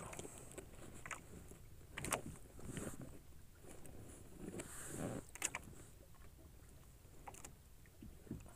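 Water lapping faintly against a small fishing boat's hull, with a few sharp knocks on board and a short rush of noise about five seconds in.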